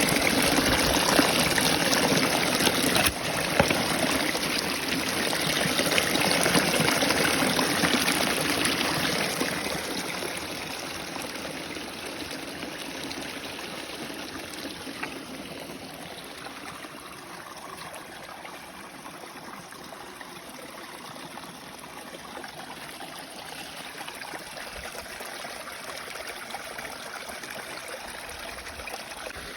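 Water from a small waterfall running and splashing steadily over rocks. It is louder for the first several seconds, then eases to a softer, even rush about ten seconds in, with one short click about three seconds in.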